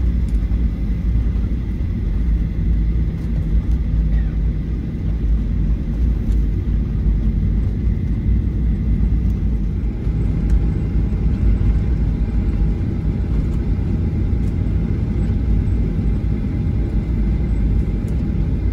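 Cabin noise of a Boeing 737-800 rolling on the ground after landing: a steady low rumble from its idling engines and wheels.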